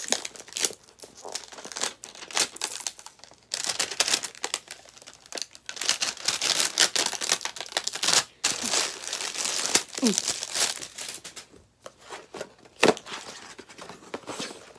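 Plastic packaging crinkling and tearing as a plush toy is unwrapped from its box, with scattered rustles at first, dense crinkling through the middle and a few sharp clicks toward the end.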